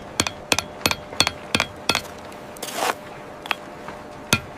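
Mallet striking a steel chisel into sandstone while carving hieroglyphs: sharp, quick taps with a short metallic ring, about three a second, then a pause with a brief scraping hiss near the three-second mark and two more taps near the end.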